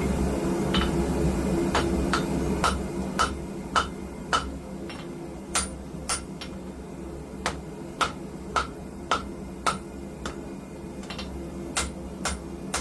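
Hand hammer striking hot steel on an anvil, about nineteen ringing blows at roughly two a second with a couple of short pauses, as a blade is forged into a curve. A forge runs steadily underneath.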